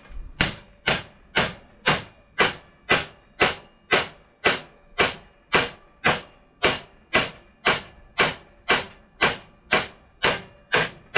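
Hammer striking a sheet-steel repair panel in a steady rhythm, a little over two blows a second, each blow with a short metallic ring, as the panel is shaped.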